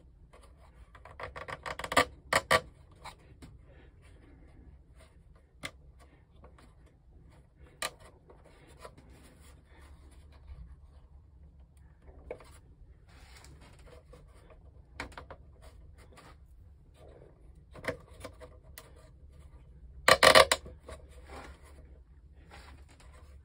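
Small wooden model parts being handled and pressed into a tight fit: scattered light clicks, taps and wood-on-wood scraping. There is a louder burst of clattering about two seconds in and another near the end.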